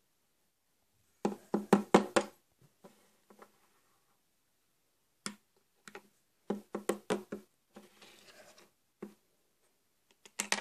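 Hard plastic toy pieces (a pony figure and a toy cupcake) clacking and tapping against a toy table as they are set in place. A quick run of knocks comes about a second in, then single clicks and another quick cluster later.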